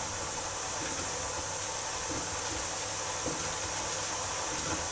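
Kitchen stand mixer's motor running steadily as it kneads sausage-meat filling: an even hiss with a low hum underneath.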